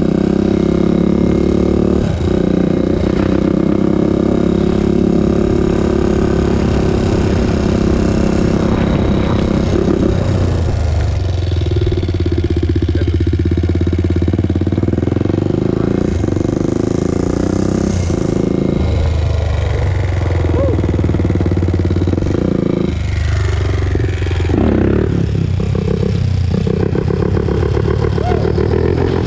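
Honda TRX400EX ATV's single-cylinder four-stroke engine running while being ridden, its pitch and strength shifting several times as the throttle opens and closes.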